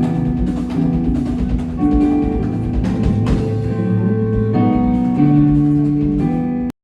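Music with drums, a bass line and sustained pitched notes, which cuts off abruptly near the end.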